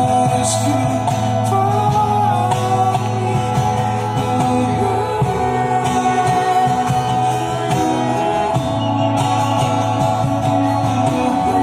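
Music: a song with a sung vocal over guitar accompaniment.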